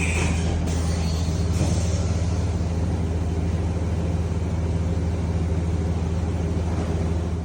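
Mazak VCS-410A CNC vertical machining center running its program: a steady, loud low machine hum, with brief hissing in the first second or two.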